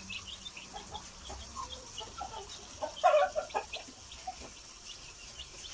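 Newly hatched chicks peeping with many short, high cheeps throughout, and a hen clucking softly to them, loudest about three seconds in.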